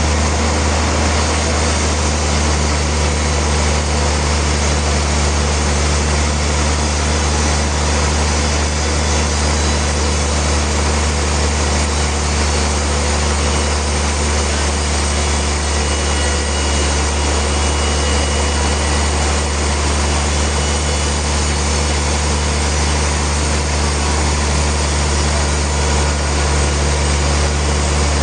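Sawmill machinery running steadily: a continuous low hum under an even rushing noise, with no pauses or changes.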